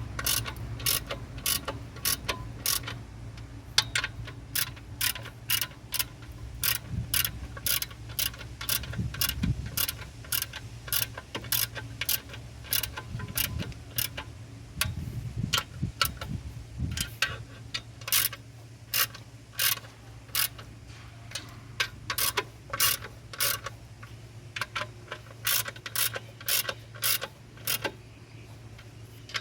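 Hand ratchet wrench clicking in even strokes, about two or three clicks a second, as the clutch pressure plate bolts are run in. A steady low hum sits underneath.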